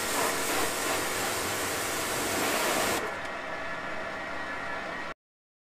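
High-pressure washer spray: a steady loud hiss that turns quieter and duller about three seconds in, then cuts off abruptly near the end.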